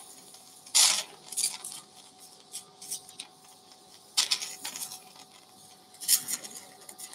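Surgical instruments at a bleeding wound during a dog's nasal planectomy, making short hissing sputters about five times over a faint steady hum.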